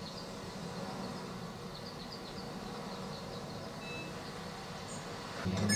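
Low, steady background rumble from a TV episode's soundtrack, with two faint short beeps about four seconds in. A phone starts ringing right at the end.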